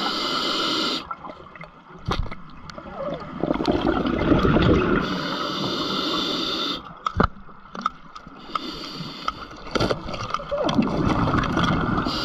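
Scuba regulator breathing heard underwater: a hissing inhale through the regulator, then a gurgling rush of exhaled bubbles, repeating every few seconds. A few sharp clicks fall in between.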